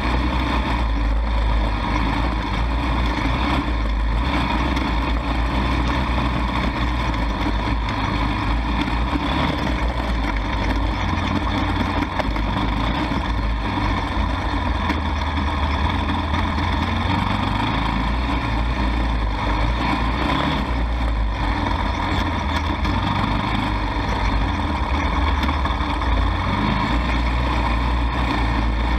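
ATV engine running steadily while riding over a rough grassy trail, heard up close with a heavy low rumble.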